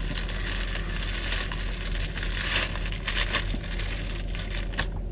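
Packaging being handled, crinkling and rustling in irregular bursts.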